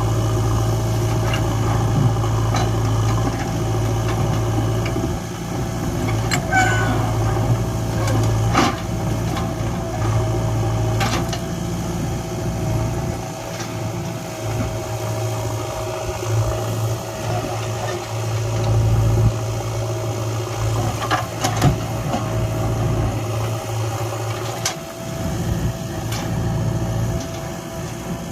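Backhoe loader's diesel engine running, its low note dropping away and coming back as the load changes, with a steady whine over it and a few sharp clanks spread through.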